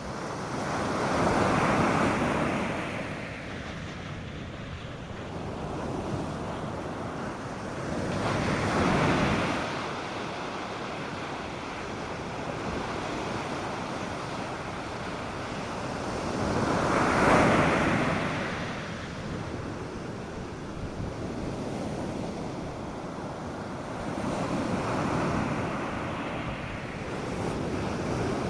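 North Sea surf breaking on a sandy beach: a steady wash of noise that swells with a breaking wave roughly every eight seconds, four times, the third the loudest.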